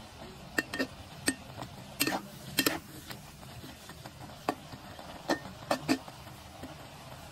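Metal spatula scraping and clinking against a wok while stir-frying cucumber and egg: about eight sharp clinks in a few quick clusters.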